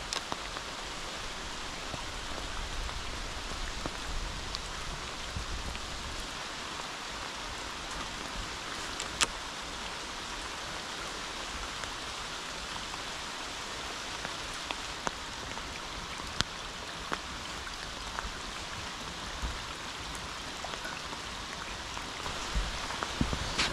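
Steady rain hissing, with scattered sharp ticks of drops striking close by; the loudest tick comes about nine seconds in.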